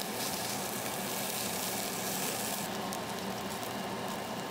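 Beef sizzling on a charcoal tabletop grill: a steady hiss with crackle.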